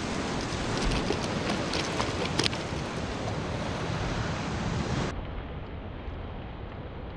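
Sea surf washing against the rocks, with wind buffeting the microphone and a few faint clicks. About five seconds in, the sound cuts abruptly to a duller, slightly quieter steady noise.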